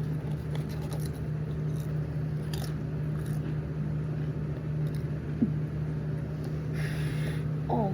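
Crunching and chewing of Pringles chips, with scattered short crackles over a steady low hum. Near the end comes a breathy exhale and a short 'oh' as the spice hits.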